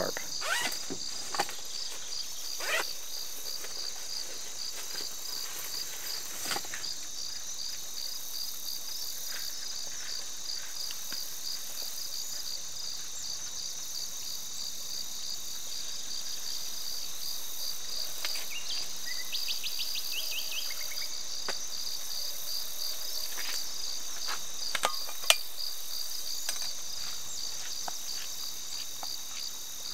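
Steady insect chorus, a high-pitched, evenly pulsing drone. A few faint knocks and clicks sound over it, the loudest about 25 seconds in.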